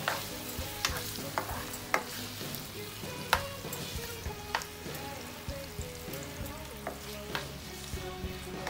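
Marinated pork pieces with ginger and spring onion sizzling in hot oil in a nonstick frying pan while being stirred with a spatula, which knocks sharply against the pan several times.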